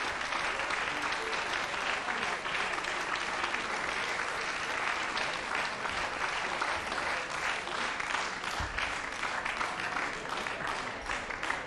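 A large audience applauding, a dense, steady clapping that thins near the end, where single claps stand out.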